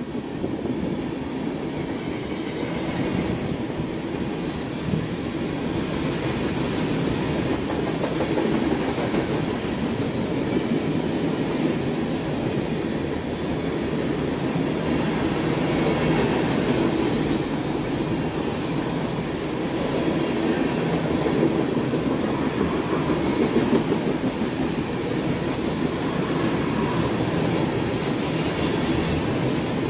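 Freight train of tank cars rolling past: steel wheels rumbling and clattering steadily over the rails. Brief high-pitched wheel squeals come in around the middle and again near the end.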